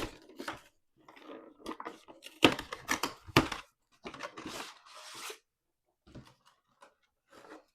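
Packaging of a Pokémon trading card collection box being torn open and handled: irregular rips, crinkles and sharp clicks with short pauses between them, the loudest rips about two and a half and three and a half seconds in.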